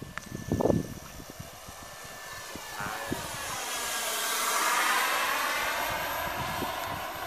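Radio-controlled model airplane flying past overhead: its motor and propeller drone grows louder, peaks about halfway through and eases off, the pitch sweeping up and down as it passes and turns. A few short knocks near the start.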